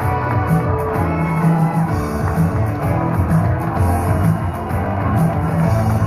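Rock-style backing music for the act, played loud with a steady pulsing bass line.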